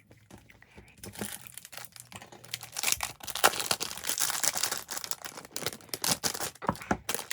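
Packaging wrapper being crinkled and torn open by hand, irregular crackling and rustling that starts about a second in and carries on.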